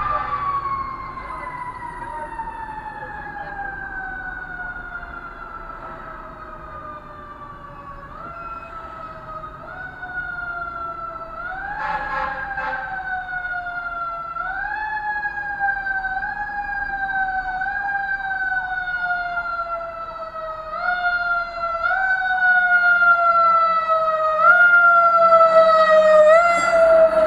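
Fire engine siren winding down in a long falling wail, then kicked back up every second or two, each quick jump in pitch sliding slowly down again. It grows louder toward the end as the engine draws near.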